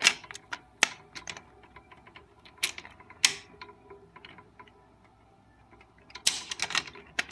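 Plastic cassette clicking and clacking against the metal transport mechanism of a cassette deck as it is handled and fitted in: scattered sharp clicks, with a quieter stretch in the middle and a cluster of louder clacks near the end.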